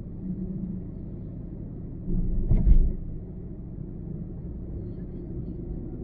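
Car driving on a highway, a steady low rumble of tyres and engine, with a louder thump about two seconds in.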